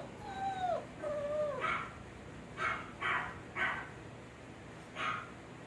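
Recorded dog sounds played through a speaker to desensitize young puppies: a few falling whines, then about five short barks.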